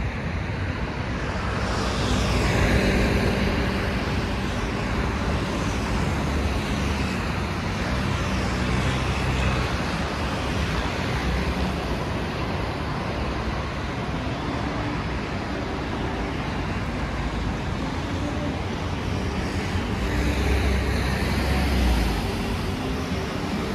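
Steady city road traffic, with motor vehicles running past. It swells with louder passing vehicles about two seconds in and again near the end.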